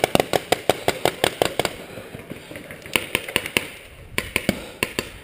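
Paintball fire: rapid sharp pops, about seven a second, in three strings with short pauses between.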